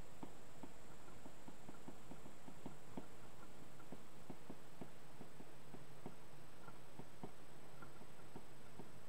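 Stylus tip tapping and ticking against a tablet screen during handwriting: a quick, irregular run of light ticks, several a second, over a faint steady electrical hum.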